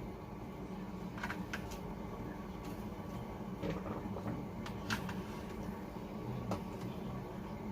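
A few light clicks and clinks of a utensil against a plate and pan as food is dished up, scattered over a steady low hum.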